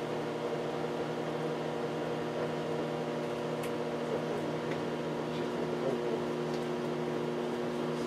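Microwave oven running with a steady electrical hum while a handheld vacuum cleaner smoulders and smokes inside it, with a few faint crackles.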